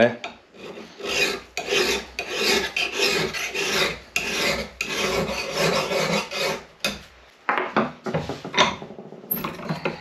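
Flat file drawn in long, even strokes along the steel rails of a chainsaw bar held in a vise, filing down the burred rail edges; about one rasping stroke a second for some six seconds, then a few lighter scrapes and knocks near the end.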